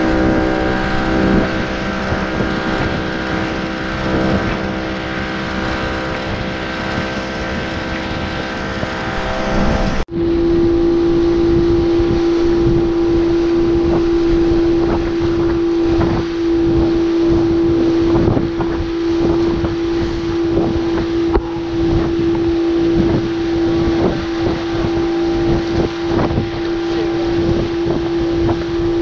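Outboard motor running steadily at speed, pushing a long wooden dugout canoe over the sea, with water rushing along the hull and wind buffeting the microphone. About ten seconds in there is an abrupt cut, after which one strong steady engine tone stands out.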